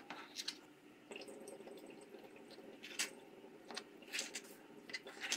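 Large kitchen knife cutting a layered cake in a metal baking tray: a scattering of faint, irregular crunches and clicks as the blade goes through the crumbly crust and meets the tray.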